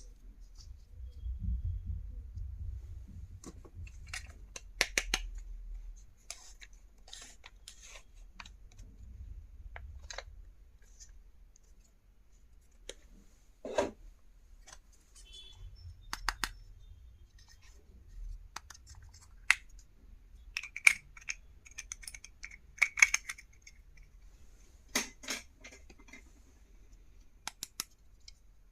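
Scattered small clicks, taps and light rustling of stationery items and their packaging being handled and unpacked, with a dull rumble of handling in places.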